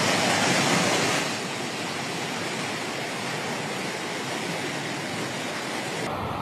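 Rushing floodwater: a steady, noisy rush, louder for about the first second, that turns duller and lower near the end.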